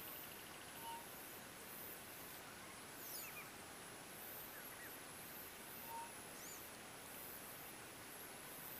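Faint wild ambience: insects trilling high and steady, with scattered short bird chirps and two brief whistled notes, about a second in and about six seconds in.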